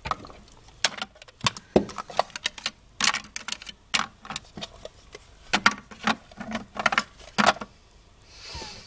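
Small plastic dollhouse toys clicking and knocking as hands pick up and move doll furniture and baby dolls, an irregular clatter of light taps, with a brief rustling swish near the end.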